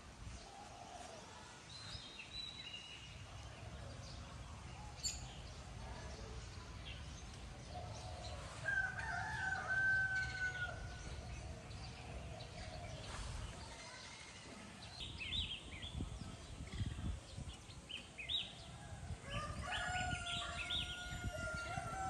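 A rooster crowing twice, once about nine seconds in and again near the end, with small birds chirping in between over a low background rumble.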